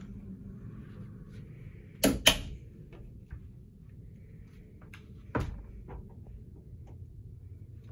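Cabin doors being handled: two sharp clicks about two seconds in, like a door shutting and latching, then a single knock a few seconds later as the wardrobe door is opened. A steady low hum runs underneath.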